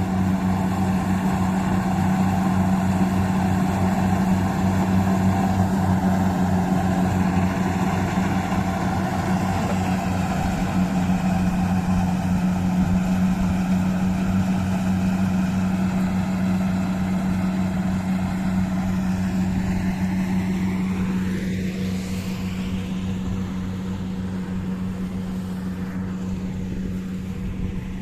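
Kubota DC-60 rice combine harvester's diesel engine running steadily with a deep hum. About two-thirds of the way in, a whine rises sharply in pitch.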